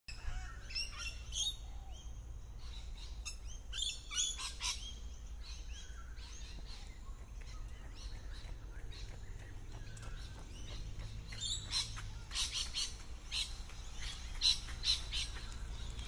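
Lorikeets calling from a tree: bursts of sharp, high-pitched screeches in quick clusters. There is a lull in the middle before a second run of calls near the end, over a steady low rumble.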